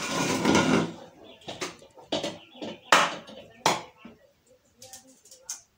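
Crockery set down on a wooden table, then eggshells tapped against a dish and cracked and peeled by hand: a string of sharp clicks and knocks, the loudest about three seconds in, then fainter small ticks of shell.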